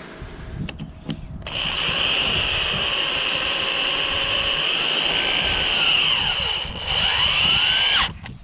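Black+Decker corded drill running for about six and a half seconds, driving a screw through a metal corner bracket into a wooden garden-box board. The motor pitch dips and recovers a couple of times under load before it stops suddenly.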